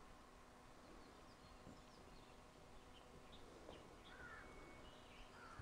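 Near silence with faint, scattered bird chirps over a faint steady hum.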